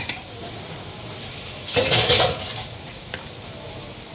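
Plastic stand-mixer bowl being handled and taken off the mixer: a brief scraping clatter about two seconds in, then a few light knocks.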